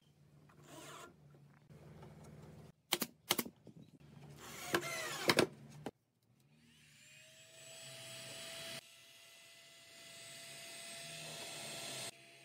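Cordless drill driving screws into wood in several short bursts. About six seconds in, it gives way to a heat gun blowing steadily, a hiss with a faint whine, as it heats a wooden slat for bending.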